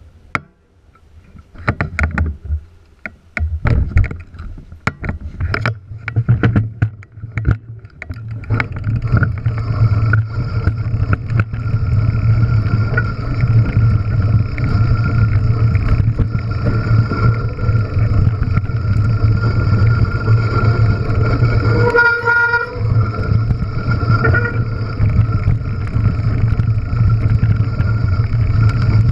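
Mountain bike descending a loose gravel track: for the first several seconds, separate knocks and clatter as the bike sets off; then a loud, steady rumble of wind on the microphone and tyres rolling over gravel. A brief squeal about two-thirds of the way through.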